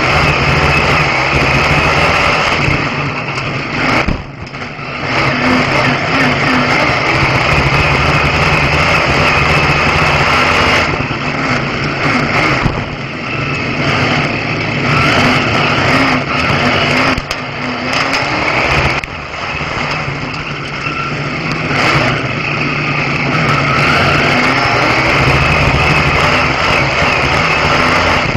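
Oval-racing car's engine heard from inside the cockpit, running loud and steady, easing off briefly about four seconds in and a few times later.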